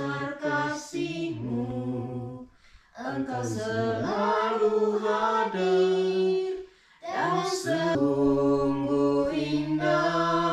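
Voices singing a prayer hymn unaccompanied, in three long held phrases with short pauses between them.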